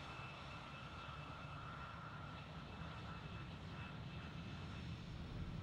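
Airbus A320 jet engines at taxi power: a steady rumble with a faint high whine that fades near the end.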